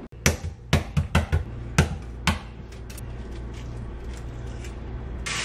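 Hard-boiled eggs being tapped against a hard surface to crack their shells: about eight sharp, irregular knocks in the first two and a half seconds, then a few faint clicks. A kitchen faucet starts running right at the end.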